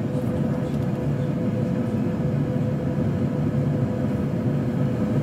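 Boeing 737-800 flight simulator's cockpit sound: a steady low rumble of simulated engine and airflow noise with a steady hum running through it, the aircraft on approach with gear down and flaps 15.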